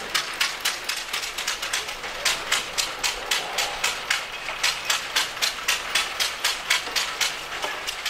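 Running engine machinery clicking steadily and rapidly, about five sharp metallic clicks a second.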